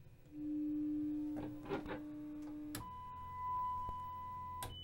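Steady test tone from the 1949 RCA 8TK29 television's speaker, showing that its sound section is working. A low tone holds for about two and a half seconds, then a click and a switch to a higher tone, with another click near the end.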